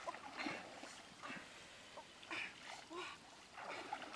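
Light water splashing as a person wades through a shallow river and lowers a bamboo basket fish trap into it, with brief wordless voice sounds in a few short bursts.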